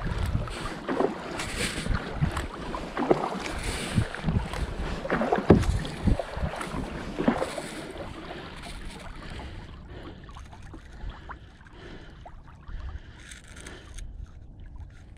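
Kayak paddle strokes splashing, with water rushing and lapping along the hull of a sit-on-top kayak. The splashes are loudest and come in quick succession in the first half, then give way to quieter lapping and trickling.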